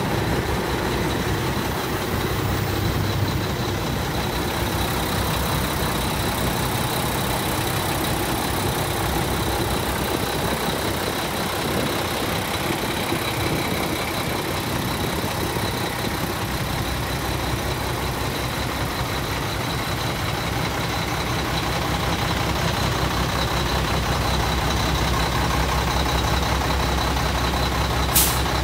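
Diesel engine of a 1998 Mack CH613 day-cab tractor idling steadily, with one short sharp click near the end.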